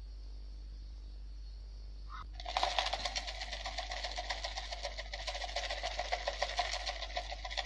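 Plastic jar of crispy fried shallots being shaken, the dry flakes rattling rapidly against the plastic, starting about two seconds in. A low steady hum runs underneath.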